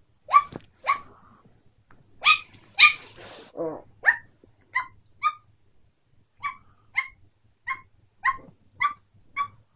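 Three-month-old Pekingese puppy yapping in play: a string of about a dozen short, high-pitched yips at roughly one a second.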